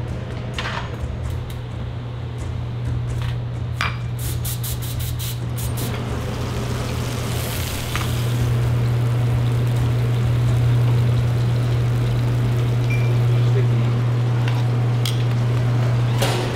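Kitchen cooking sounds: a steady low hum over a sizzling haze, with scattered light clinks and taps of utensils on pans. The hum grows louder about halfway through.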